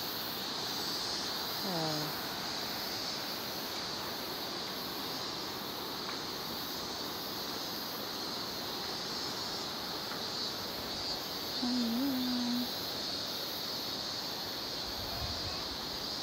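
A steady high insect drone over a constant hiss of outdoor ambience. It is broken by a short falling voice-like call about two seconds in and a brief wavering voice near twelve seconds.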